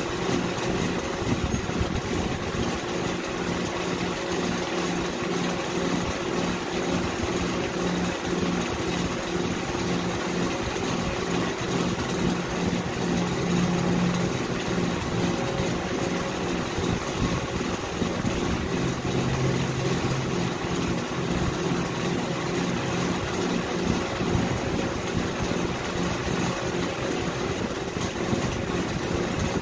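A motor running steadily with an even hum that holds the same level throughout.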